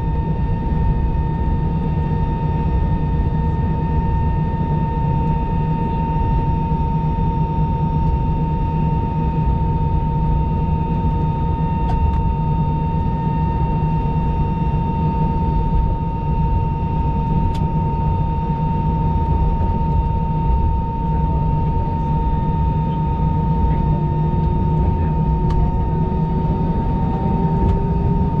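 Steady cabin noise inside an Airbus A319 taxiing: a low rumble with a constant high whine from the engines at idle. Near the end a fainter tone rises slowly in pitch.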